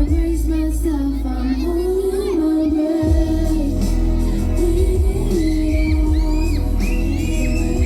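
Live pop music: a woman singing a melody over deep, steady bass and a drum beat.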